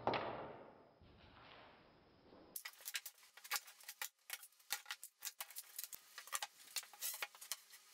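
Plunge router whirring as it winds down and fades out over the first second or two. This is followed by a run of light, irregular clicks and knocks as the 9 mm birch plywood board is handled and lifted off the bench.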